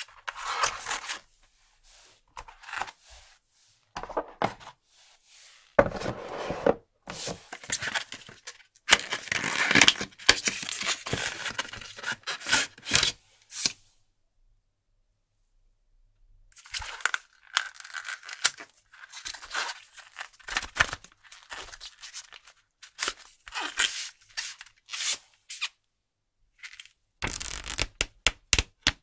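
Paper and cardboard packaging of a tablet box being handled and torn open, a run of rustling, scraping and tearing with sharp clicks. It stops for a couple of seconds about halfway through. Near the end a paper booklet's pages are riffled.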